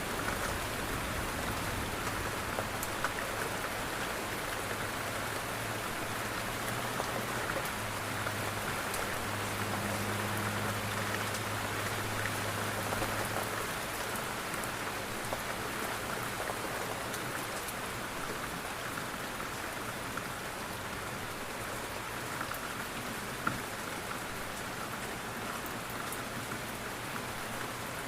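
Steady rain falling on a window pane, an even patter with scattered small drop ticks. A low steady hum sounds under it for the first half and fades out about halfway through.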